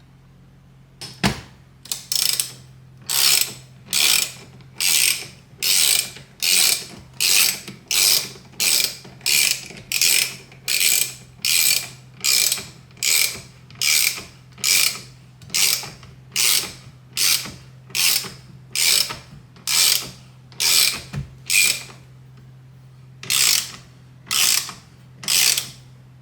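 Hand ratchet wrench turning a bolt in repeated back-and-forth strokes, the pawl clicking on each return swing, about one stroke every second with a brief pause near the end.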